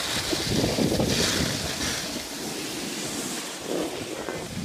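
Wind buffeting the microphone with the hiss of skis sliding over packed snow, swelling and easing as the skiers move down the slope.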